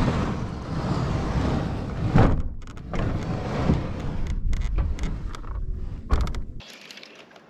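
Plastic fishing kayak hull scraping and grinding over a gravel ramp as it is pushed along, heard through a camera mounted on the kayak, in uneven surges. It stops abruptly near the end.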